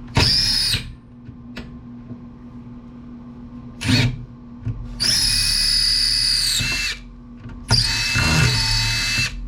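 Cordless power drill-driver spinning out screws from an amplifier chassis in four runs: two short bursts, then two longer ones of about two seconds. Its motor whine drops in pitch as each run stops.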